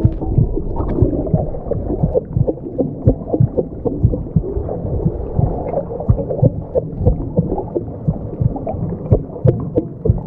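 Layered sound-design collage of processed everyday object sounds, made to be unrecognisable and frightening: a dense, muffled low rumble with irregular knocks and pulses throughout.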